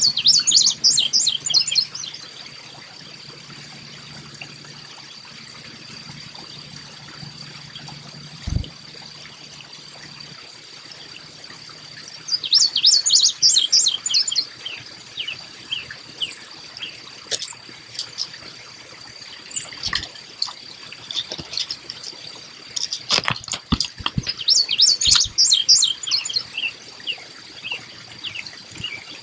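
Carolina chickadee calling three times, each call a quick run of high notes trailing into lower ones, over a steady thin high tone and faintly trickling water.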